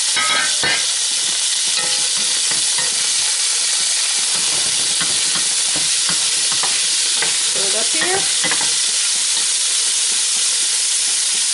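Cubed beef browning in hot oil in a deep pot: a loud, steady sizzle, with a wooden spoon stirring and scraping through the meat.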